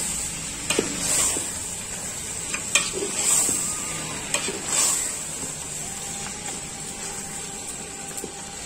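Chicken and ginger-garlic paste sizzling in hot oil in a pan while a spoon stirs it, frying until the paste's raw smell is gone. Several scrapes and knocks of the spoon in the first five seconds, then mostly a steady sizzle.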